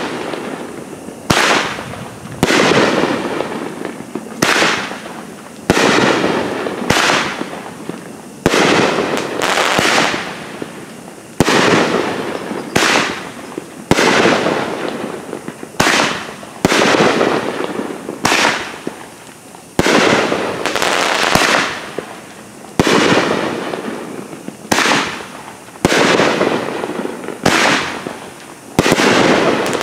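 World Class 'Mighty Moe' consumer aerial firework cake firing shot after shot, roughly one a second. Each shot is a sharp bang that fades over about a second before the next one.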